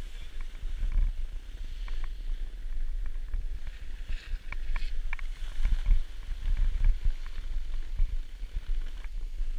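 Low, fluctuating rumble of wind buffeting an action camera's microphone, with scattered small clicks and knocks from handling.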